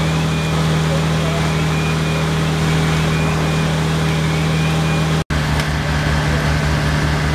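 Diesel engines of fire engines running steadily at a fire scene, a loud, constant low hum. About five seconds in the sound drops out for an instant, then a low, regular throbbing joins the hum.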